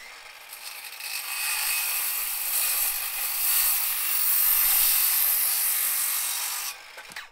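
Handheld circular saw cutting through a short piece of wooden trim. The cut grows louder about a second in, holds steady, and drops off sharply near the end.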